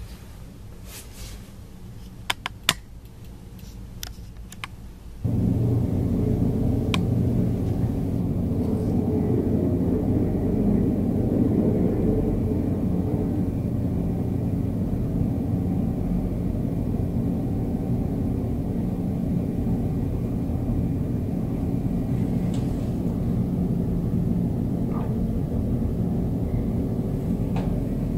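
A few faint clicks, then about five seconds in a steady low rumble with a hum in it starts abruptly and runs on unchanged.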